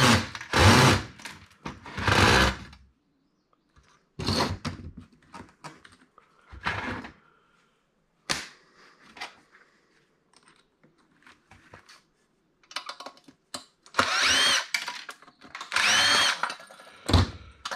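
Cordless drill-driver backing out small screws from a POS terminal's sheet-metal housing in several short bursts, the motor whine rising and falling with each burst. Sharp clinks of screws and parts being handled come between the bursts.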